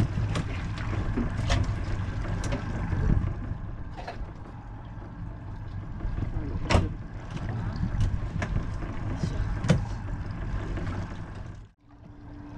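Small fishing boat's engine running with a steady low hum, with scattered sharp knocks and clicks from gear being handled on the deck. The sound drops out briefly near the end.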